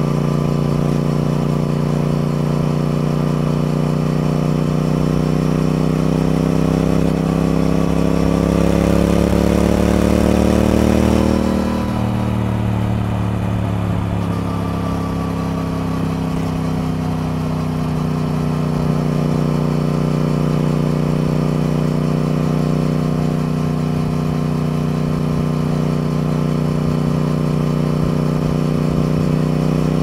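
Triumph Speed Twin's parallel-twin engine under way, revs rising steadily for about eleven seconds. The revs then drop suddenly and fall away over several seconds before settling at a steady pitch.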